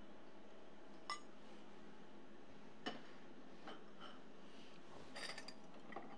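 Faint, scattered light clinks of a metal spoon against dishes, a few single clinks spaced out with a short cluster of them near the end.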